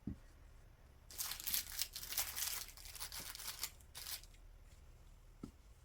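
Plastic packaging of small craft supplies rustling and crinkling as the packets are handled and moved across a table, with a soft knock at the start and another near the end as items are set down.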